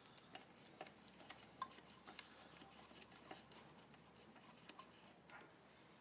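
Faint, irregular small metallic clicks and ticks of a quarter-inch drive ratchet and socket working the idle air control valve's mounting bolts loose.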